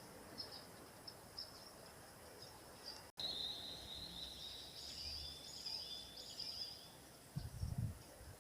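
Faint outdoor background with high-pitched chirping calls, broken by a sudden cut about three seconds in, then a wavering high chirping line. Low thumps come in near the end.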